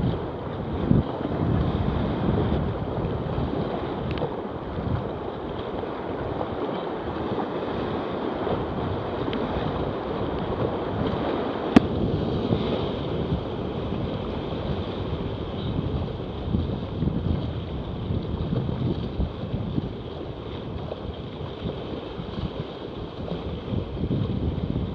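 Whitewater rapids rushing and splashing over a kayak's bow, with wind buffeting the microphone. One sharp click about twelve seconds in.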